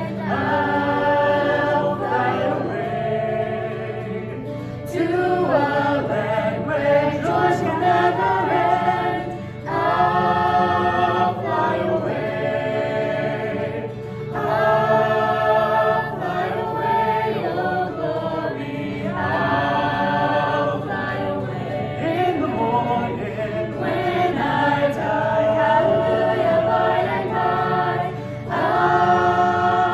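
Choir singing a sacred song in long held phrases, with short breaths between phrases every few seconds.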